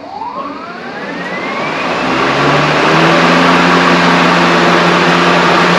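Cordless battery-powered lawn mower switched on: the motor and blade spin up with a whine that rises over about two seconds, then run on at full speed with a loud, steady whir.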